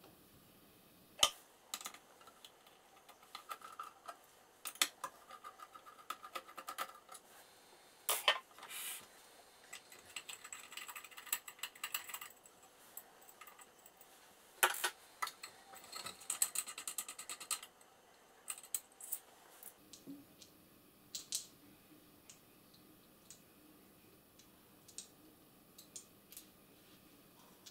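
Irregular clicks, taps and clattering of hands working on the parts of an opened Kenmore Ultra Stitch 12 sewing machine. The handling is busiest in the first two-thirds and thins out to a few light clicks near the end.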